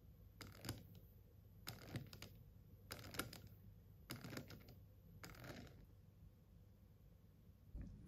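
Faint, irregular clicking in small groups about once a second, thinning out in the last couple of seconds, from a home-built axial flux motor twitching on its driver board's pulses without spinning. It stalls instead of running, which the builder puts down to the driver board sending too high a voltage or pulsing too fast.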